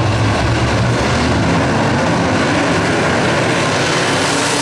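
A pack of dirt-track modified race cars' V8 engines running together as the field goes by, a loud steady blend of many engines.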